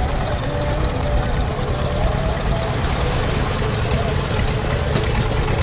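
An engine idling steadily, with people's voices in the background.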